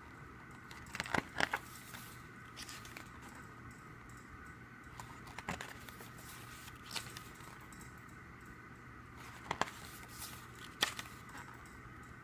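Scattered crinkles and taps from the paper and plastic parts of a K-pop CD album being handled, about seven brief sounds spread out over a faint steady hum.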